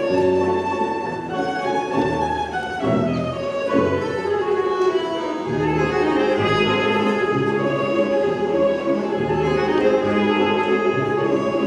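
Orchestral music with violins and other bowed strings over a repeating bass line, with a falling run a few seconds in.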